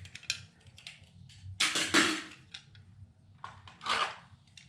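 Paper pieces being handled on a craft table: scattered light clicks and taps, with two louder rustles of paper sliding, one about halfway through and one near the end.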